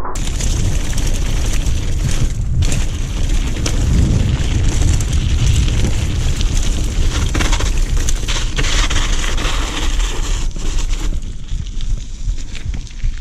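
Wind buffeting a bike-mounted action camera's microphone during a fast mountain bike descent, over steady tyre rumble and crunching on a loose gravel track and the rattle of the bike. The noise eases slightly near the end.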